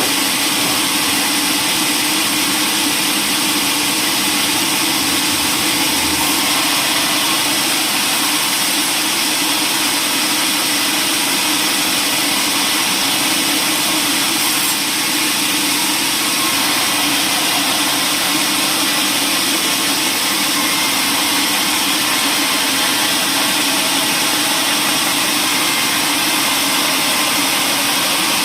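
Machinery running with a steady, loud, even noise that does not change.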